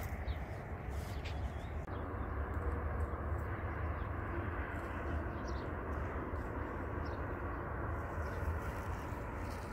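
Steady outdoor ambience: wind rumbling on the microphone with a constant rushing hiss, and a few faint bird chirps.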